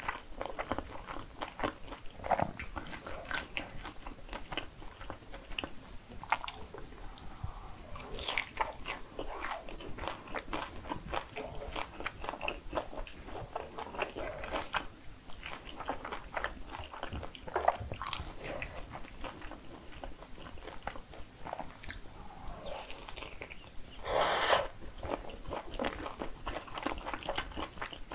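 Close-miked eating sounds: chewing and biting through jajangmyeon noodles and crispy kkanpunggi (fried chicken in spicy sauce), with many small crunches and wet mouth clicks. One louder, longer burst of sound comes about three-quarters of the way in.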